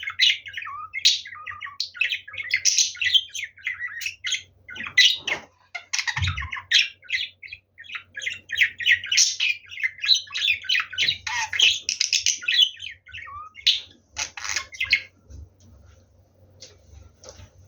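Pet budgerigar chattering and warbling in a fast, busy stream of squawks and chirps, which falls away about fifteen seconds in. A low thump about six seconds in.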